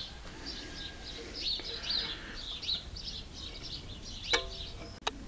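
Small birds chirping over and over in short rising-and-falling notes. About four seconds in comes a single sharp metallic clink with a brief ring as the steel wire and the drill-bit pin on the bending machine's table are handled, and a second short click follows just before the end.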